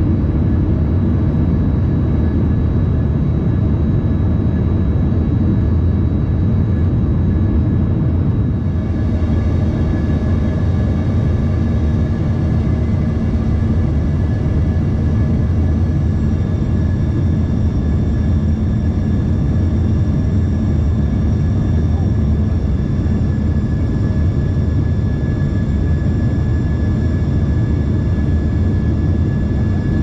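Steady cabin noise inside an Embraer ERJ-145 regional jet on approach: a loud low rumble of its rear-mounted turbofan engines and the airflow, with a few thin steady whines above it. About nine seconds in, higher whining tones join.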